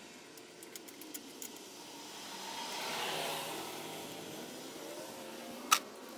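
A passing vehicle, its noise swelling to a peak about halfway through and fading away, over faint ticks of a screwdriver tightening a hose clamp. A sharp clank comes near the end.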